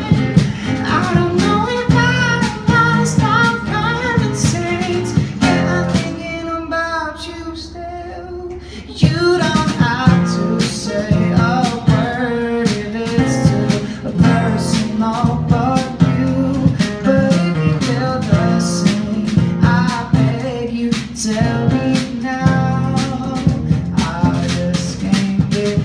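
A live acoustic band plays a song: two acoustic guitars strummed, a male lead voice with a harmony voice, and a small drum kit played with sticks. About six seconds in, the guitars and drums drop back and leave mostly the voices for about three seconds. At about nine seconds the full band comes back in.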